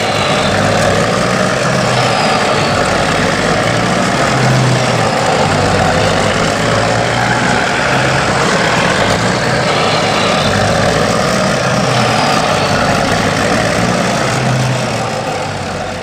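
Heavy truck engine running steadily with a low, pulsing rumble: a dubbed engine sound effect, since the plastic toy trucks have no motor.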